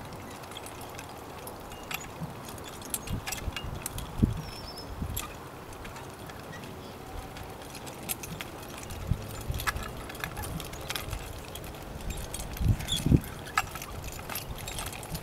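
A pair of Percheron draft horses walking in harness on soft tilled ground: the metal harness hardware jingles and clinks irregularly, with dull thumps from their steps, the loudest about four seconds in and again near the end.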